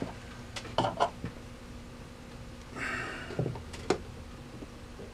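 Sharp metal clicks and a brief scraping rattle as a steel cotter pin is worked through a tight hole in a Victor 77 gumball vending mechanism with pliers: a few clicks in the first second or so, a short scrape about three seconds in, then two more clicks.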